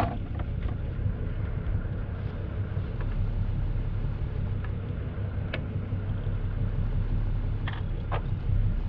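Steady low drone of a motor yacht's engine running, with a few faint clicks in the second half.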